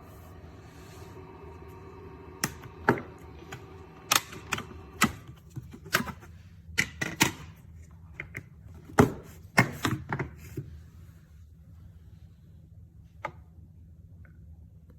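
Irregular clicks and knocks of the Dreame H12 Pro wet-dry vacuum being handled: about a dozen sharp strokes over some eight seconds, then one more alone near the end, over a low steady hum.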